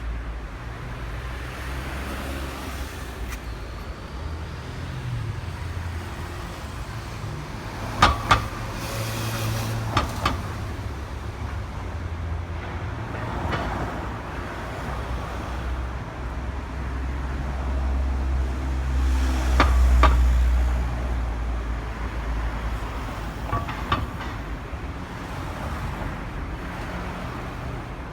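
Two loose, unfixed manhole covers clanking as cars drive over them, over a steady low rumble of passing traffic. The sharp clanks come in quick pairs, several times, the loudest a double clank about a third of the way in.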